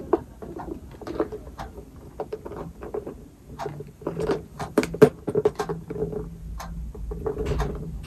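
Two small handbags being handled and moved about: scattered rustles and light clicks of leather, straps and metal hardware, with short soft knocks throughout.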